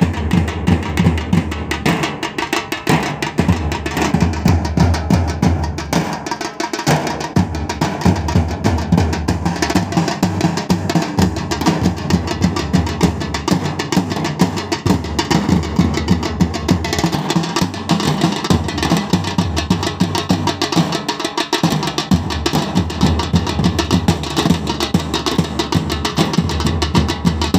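A troupe of drummers beating large double-headed side drums with sticks, with a smaller snare-type drum, in a fast, continuous rhythm; the deep drums drop out briefly a few times.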